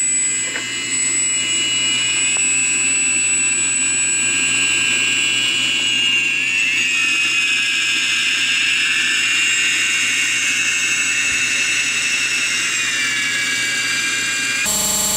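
Brushless motors of a Hubsan H501S quadcopter running with a steady high-pitched whine. Several tones drift up and down and cross each other about halfway through as the motor speeds shift.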